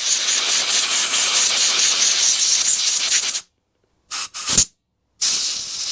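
Compressed-air blow gun hissing as it blasts through a Briggs & Stratton lawn mower carburettor to clear dirt from its passages. A long blast cuts off about three and a half seconds in, two short puffs follow, and the hiss starts again near the end.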